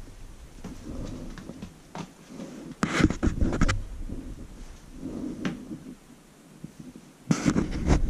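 Kitten scuffling and pouncing on tatami mats after a small toy dragged on a string, with scrapes and soft thumps coming in irregular bursts, loudest about three seconds in and again near the end.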